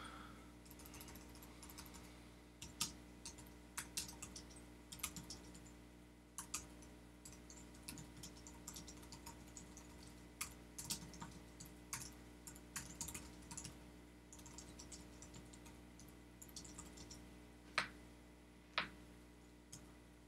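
Typing on a computer keyboard: irregular, faint keystrokes, with two louder key presses near the end.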